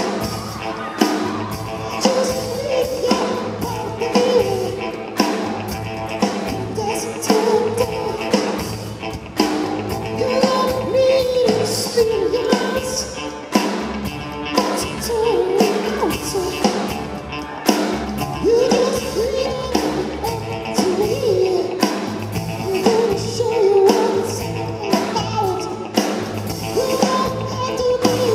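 Live rock band playing a song: a male lead voice singing over drums, electric guitar and bass guitar, with a steady beat.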